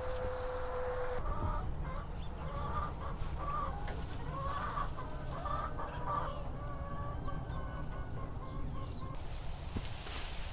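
Chickens clucking in a run of short, irregular calls that die away about two-thirds of the way through, over a steady low rumble.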